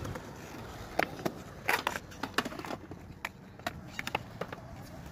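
Skateboard on concrete: wheels rolling with a series of sharp clacks and knocks, the loudest cluster a little under two seconds in.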